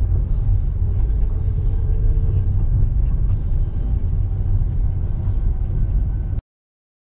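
Car moving slowly over a gravel parking lot, heard from inside the cabin: a steady low road rumble with short crunches of gravel under the tyres. It cuts off suddenly near the end.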